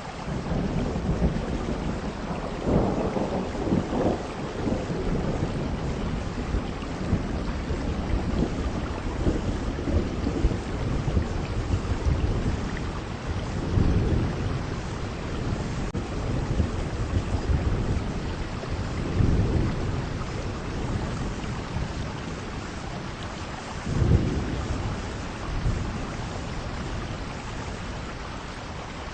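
Heavy rain pouring steadily, with deep low rumbles that swell and fade several times, the strongest about 3, 14, 19 and 24 seconds in.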